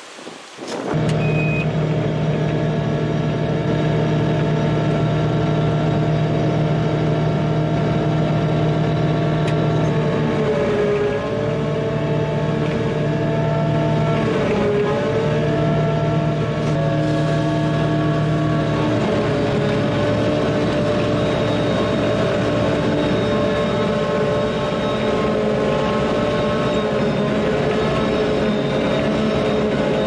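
Engine of a forage chopper rig running steadily under load while cutting standing corn for silage, heard from the cab. It starts abruptly about a second in, and its pitch sags briefly twice, around 11 and 15 seconds, as it lugs under the load.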